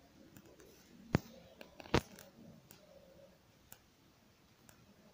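Quiet room tone with two sharp clicks a little under a second apart, and a few fainter ticks.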